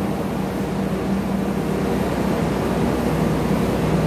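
Diesel engine of a large coach running at low revs as it creeps forward, a steady low rumble with an even drone.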